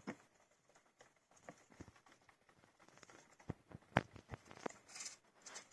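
Fifteen-day-old hamster pups moving about: scattered small taps, scratches and rustles at irregular times, the loudest about four seconds in, with a brief high hiss about five seconds in.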